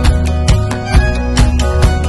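Background music with a steady beat of about two strikes a second over held bass notes.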